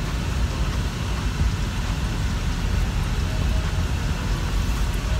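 Steady road and engine noise of a moving car heard inside its cabin, a constant low rumble.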